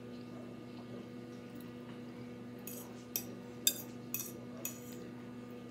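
A metal fork clinking and scraping against a plate as noodles are twirled up, about five sharp clicks in the second half, over a steady low electrical hum.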